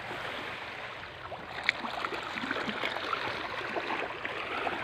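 Sea water lapping and sloshing steadily, with many small splashes and gurgles.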